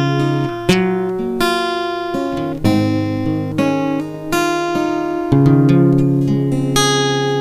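Acoustic guitar playing the closing bars of a song alone, chords struck about once a second or so and each left to ring and fade.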